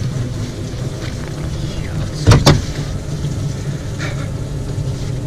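Two sharp knocks in quick succession about two seconds in, inside a small aluminium boat, over a steady low rumble.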